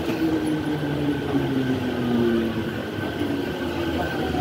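Toyo Rapid Railway 2000 series train braking to a stop at the platform: a steady running rumble with a motor whine that falls in pitch as the train slows.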